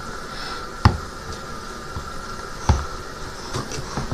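Two short knocks nearly two seconds apart, over a steady background hiss.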